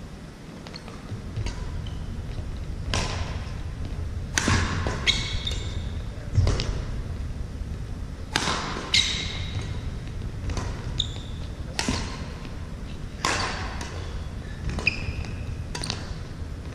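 Badminton rally on a gym court: sharp racket-on-shuttlecock hits every second or two, with sneakers squeaking and feet thudding on the hardwood floor, echoing in the hall.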